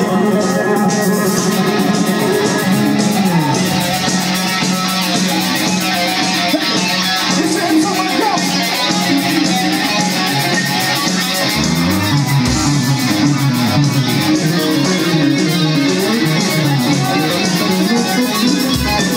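Live rock band playing: electric guitars over bass guitar and drums, with deeper bass notes coming in about twelve seconds in.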